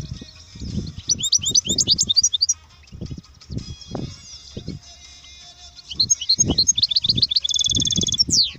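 European goldfinch singing: a run of fast, high twittering phrases about a second in, then a second longer run from about six seconds in to near the end. Irregular low buffeting noise runs underneath.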